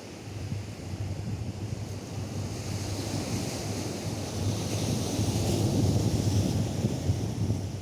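Atlantic surf on a sandy beach, a wave's wash swelling to a peak a few seconds in, with wind buffeting the microphone.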